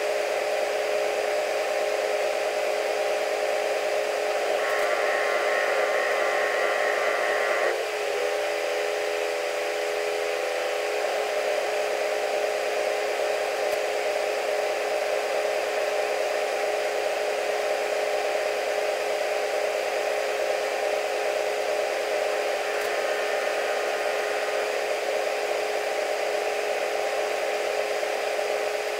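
Steady mechanical whir made of several held humming pitches. A higher warbling tone joins it about five seconds in and again near the end.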